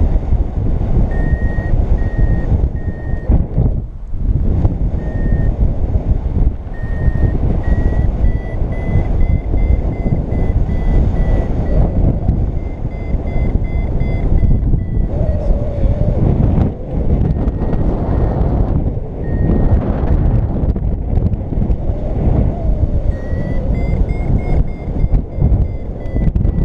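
Paragliding variometer beeping: short high beeps in groups that rise in pitch and run closer together about eight seconds in and again near the end, the climb tone that signals the glider is rising in lift. Heavy wind noise on the microphone underneath.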